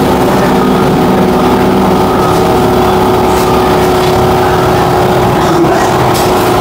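A loud, steady mechanical hum of a running motor or engine, with a constant tone through it.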